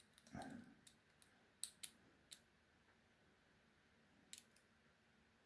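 Faint, sparse metallic clicks of a lock pick working the pins of a padlock's pin-tumbler cylinder under a tension bar, about half a dozen small ticks spread through, with a soft handling noise about half a second in.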